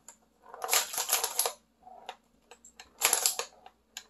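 Ball rattling around the playfield of a wooden toy pinball machine, with its flippers clacking: two bursts of rapid clicking and clattering, one about a second in and another near three seconds.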